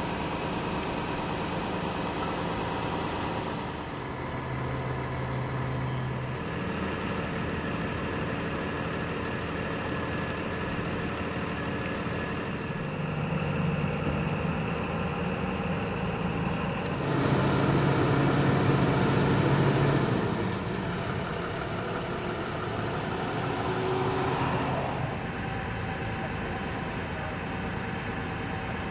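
Utility bucket truck engines running steadily at idle, with a couple of louder spells in the middle where the engine note rises.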